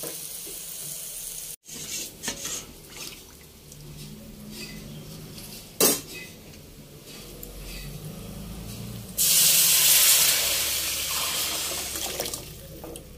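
A metal spoon or utensil clinking against a pan over a low frying sizzle. About nine seconds in, boiled mung dal is poured into the hot oil tempering, giving a sudden loud hiss that slowly fades.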